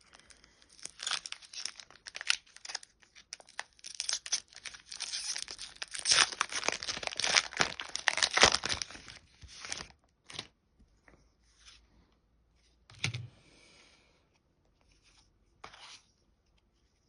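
Foil wrapper of a Pokémon TCG booster pack being torn open and crinkled, about ten seconds of crackling tearing, loudest near the middle. A few faint short rustles and taps follow.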